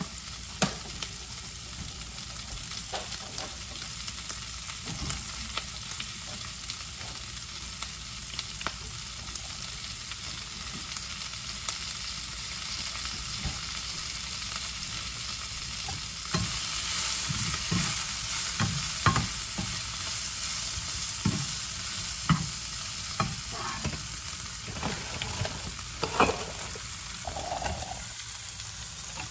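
Sausage slices and fresh spinach sizzling in a frying pan, a steady hiss with scattered light taps. About halfway through the sizzle grows louder, and a spatula knocks and scrapes as it stirs the pan.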